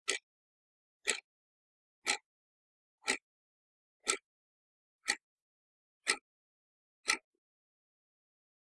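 Eight short, harsh bursts of noise, one each second, with dead silence between them.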